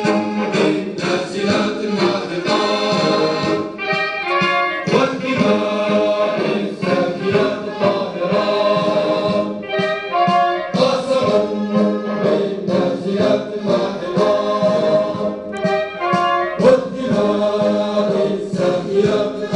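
Music: a choir singing with brass and orchestral accompaniment.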